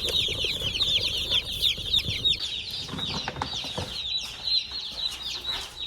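A large batch of Cornish cross meat chicks peeping: many high, falling chirps overlapping without a break.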